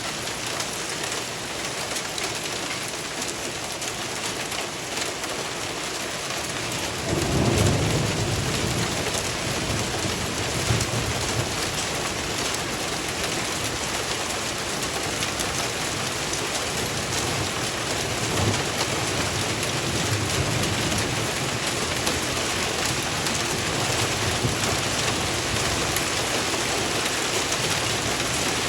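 Hail and rain pelting down on surfaces: a steady dense hiss with scattered sharp clicks of hailstones. About seven seconds in, a deep rumble of thunder starts and rolls on underneath.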